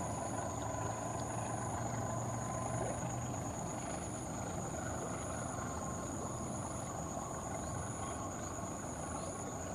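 Distant diesel-electric locomotive hauling a passenger train, its engine running steadily under a wash of rolling and hissing noise, with a low drone that eases off a few seconds in.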